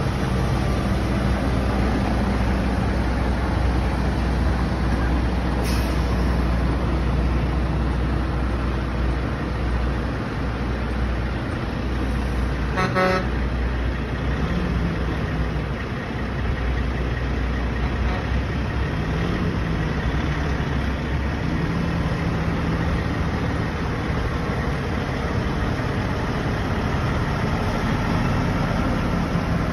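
Diesel semi-truck tractors pulling race-team transporter trailers, driving slowly past one after another with a steady low engine rumble and tyre noise. One truck gives a short horn toot about halfway through.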